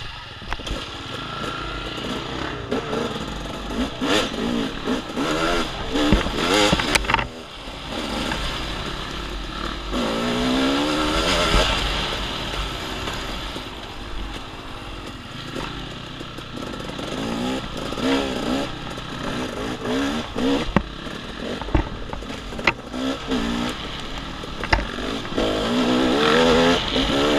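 Off-road dirt bike engine revving up and down over and over while riding a woods trail, with scattered sharp knocks and clatter.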